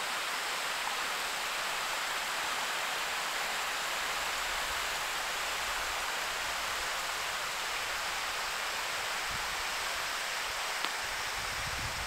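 Steady rush of water running off a beaver dam into the stream channel below.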